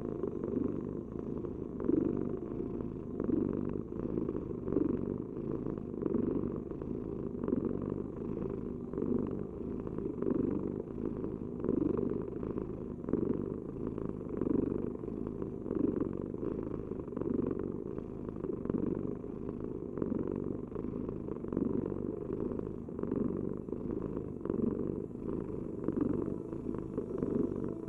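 Domestic cat purring steadily, the purr swelling and easing in a regular rhythm about every second and a half as the cat breathes in and out.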